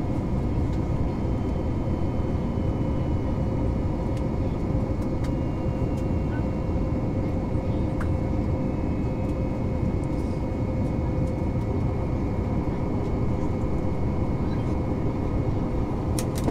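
Steady rushing drone inside the cabin of an Airbus A321neo in flight: engine and airflow noise with a steady hum running through it. A few faint clicks come near the end.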